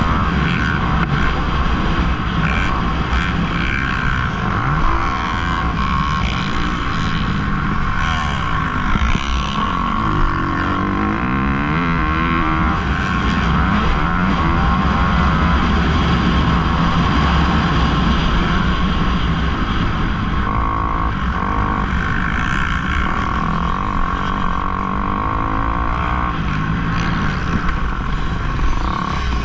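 Kawasaki KX250F four-stroke single-cylinder dirt bike engine running hard, heard from on board, its revs rising and falling again and again as the bike is ridden around a motocross track.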